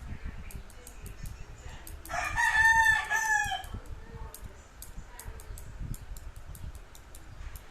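A rooster crows once, about two seconds in, for about a second and a half and much louder than anything else. Throughout, there are rapid light clicks of chopsticks tapping together, about three or four a second.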